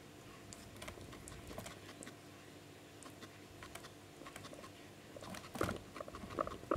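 Guinea pig rustling and nibbling hay: scattered small clicks and rustles, with a few louder knocks and rustles near the end.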